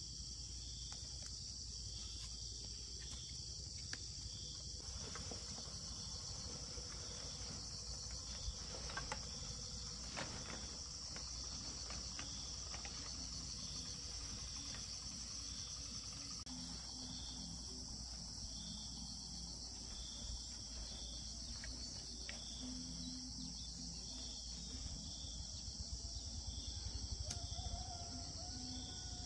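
Insect chorus: a steady, high-pitched chirring, with a second insect's call pulsing about twice a second over it. A few light knocks come around nine and ten seconds in.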